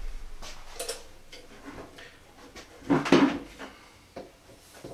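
Clattering and knocking of hard objects being handled, a few light clicks followed by a louder clatter about three seconds in.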